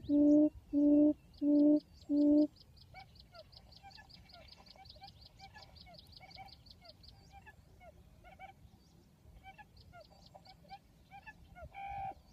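A buttonquail's low hooting call, repeated about one and a half times a second, stops about two seconds in; this is the call used to lure field quail to the trap. After it come faint short chirps and a fast high ticking, with one louder call near the end.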